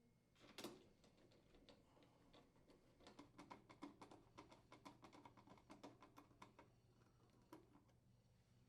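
Faint clicks of a screwdriver driving the screws that secure the door hinge to a front-load washer's front panel: a single click, then a rapid run of ticks for about three seconds, and one more click near the end.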